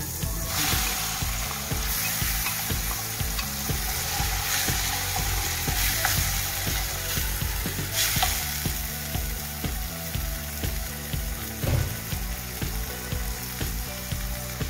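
Tofu cubes dropped into a pan of hot fat, sizzling strongly from about half a second in and frying on. A wooden spoon stirs and scrapes through them in the metal pan.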